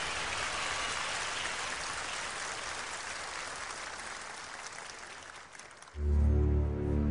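Audience applauding, slowly dying away over several seconds. Near the end, music starts abruptly with a deep bass note.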